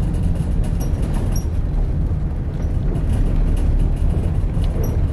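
Car driving on an unsealed gravel road, heard from inside the cabin: steady loud tyre and engine rumble with a few light ticks.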